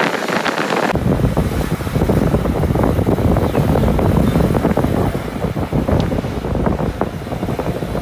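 Vehicle driving slowly along a rough road, heard from an open window, with wind rumbling on the microphone from about a second in, and road and engine noise under it.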